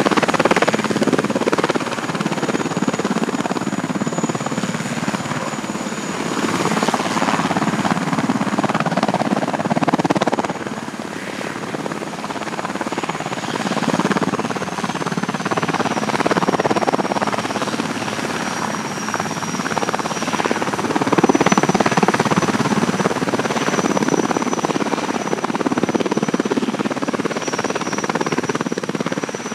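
Military helicopter running close by, a loud rotor noise that swells and eases every few seconds. Over it sits a steady high whine, which drops slightly in pitch about halfway through.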